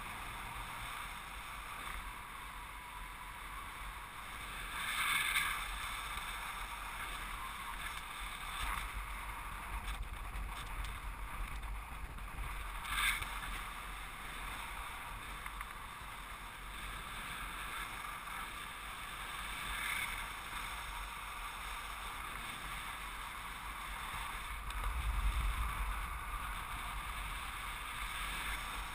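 Airflow rushing over the camera in paraglider flight: a steady wind hiss with a low rumble, flaring briefly louder about five, thirteen and twenty seconds in, with a deeper buffeting rumble swelling near the end.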